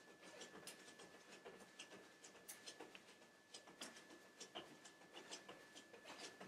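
Near silence with faint, irregular soft taps of bare feet landing on a yoga mat during jumping jacks, over a faint steady high whine.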